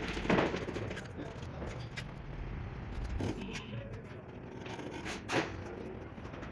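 Hand tool work on tiles or stone: a handful of irregular knocks and taps with scraping between them, the loudest knock about five seconds in.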